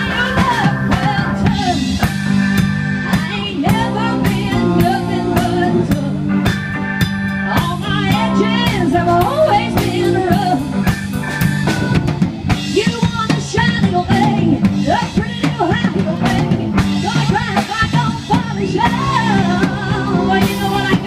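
Live rock band playing through amplifiers: drum kit, electric guitars and keyboard, with a woman singing over them.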